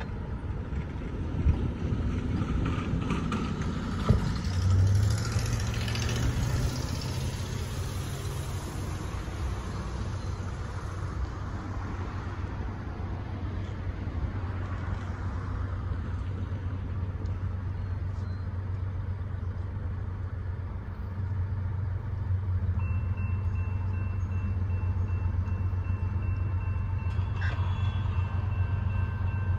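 Steady low engine hum with the noise of a vehicle passing. A few steady high tones join in about two-thirds of the way through.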